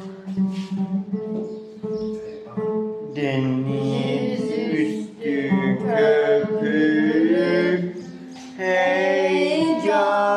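Acoustic guitar playing a Turkish folk song, with a voice joining about three seconds in and singing long, bending held notes.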